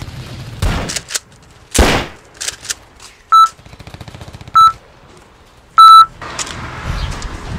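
Game-style electronic sound effects: two short beeps and a longer third, about a second and a quarter apart, very loud and with a single pitch. Before them come two sudden thuds, the second louder.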